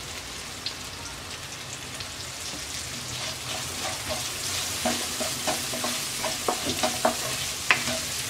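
Cubed potatoes and onions sizzling in hot oil in a wok. A few seconds in, a wooden spatula starts stirring them, with repeated knocks and scrapes against the pan.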